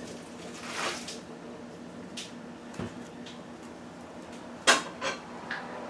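A stainless-steel pot being handled: a few light clicks and knocks, then one sharp metallic clank near the end followed by two smaller ones.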